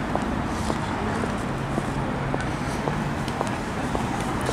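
City street traffic noise: cars running on the road, with a steady low engine hum starting about a second and a half in, and a few light ticks.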